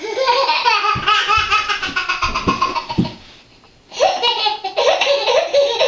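Eleven-month-old baby's hysterical belly laughter: a long run of rapid laughs that breaks off for a moment past the middle, then starts again.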